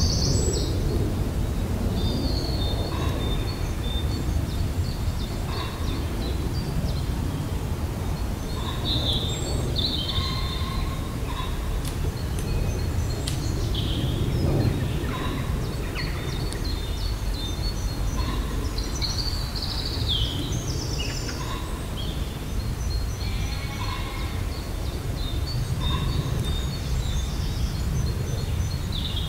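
Birds singing and calling, with short chirps and phrases from several birds scattered throughout, over a steady low rumble.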